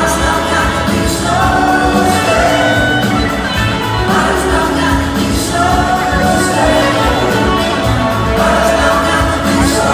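Live band playing at full volume: electric guitars, drums and cymbals, trumpet and saxophone, with voices singing.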